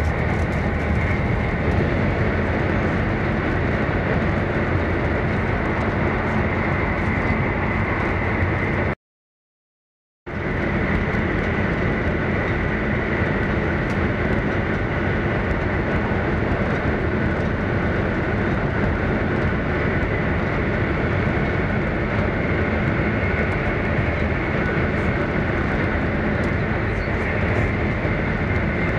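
Steady running noise inside the cabin of an E1 series Max Shinkansen at speed: a dense rumble with a faint, steady high tone. It cuts to silence for about a second roughly nine seconds in, then resumes, with the train by then running through a tunnel.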